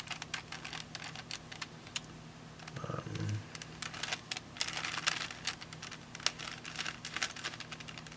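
Plastic layers of a glued-together three-cube Rubik's puzzle being turned by hand, a rapid run of small clicks and clacks in uneven bursts. A short low hum comes about three seconds in.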